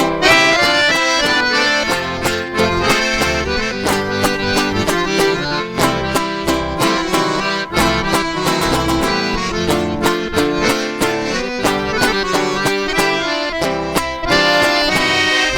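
Instrumental break in a sertanejo song: an accordion carries the melody over plucked guitar-type strings and a bass line, keeping a steady beat.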